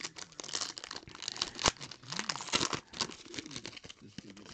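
Foil wrapper of a trading card pack being torn open and crinkled by hand: a run of crackling with sharper snaps, the loudest about a second and a half in.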